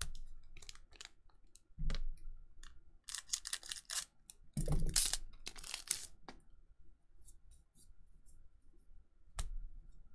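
Weiss Schwarz booster pack wrapper and trading cards being handled: short crinkly rustles and tearing with scattered clicks, loudest a few seconds in.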